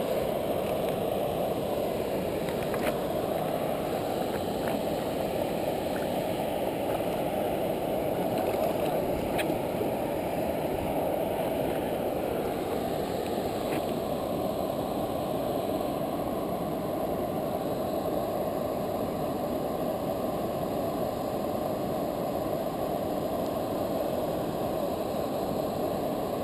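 Steady rushing of water pouring through a river weir's sluice gates, an even low roar with a few faint clicks over it.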